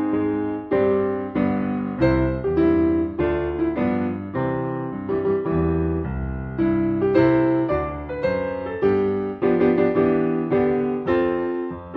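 Solo piano music in the style of a silent-film accompaniment: a steady run of struck chords, about one to two a second, each dying away before the next.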